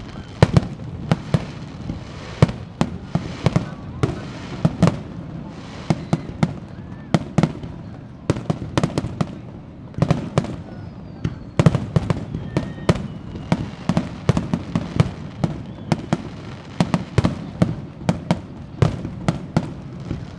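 Aerial fireworks display: shells bursting in quick, irregular succession, sharp bangs often several at a time, over a continuous low rumble, with a few faint whistles.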